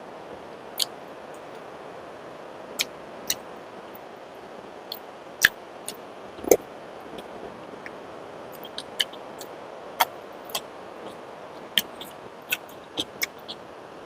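Eating sounds: scattered sharp clicks and smacks of chewing and handling food, irregular and sometimes in quick pairs, over a steady hiss.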